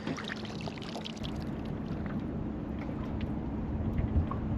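Water splashing and trickling at the side of a small boat, with scattered small ticks in the first second or so and a faint steady low hum underneath.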